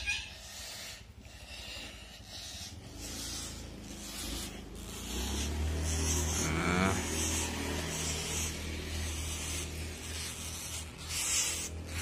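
Cloth rustling and hands handling a plastic jar as woodpecker nestlings are lifted out, with short soft hissy rustles. A steady low motor hum comes in about five seconds in.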